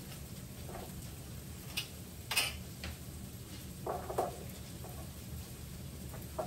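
Chopped zucchini being tipped from a glass jar into a frying pan of sautéing onions. A few sharp clicks and taps come about two seconds in, and a short clatter of pieces landing in the pan comes about four seconds in, over a steady low hum.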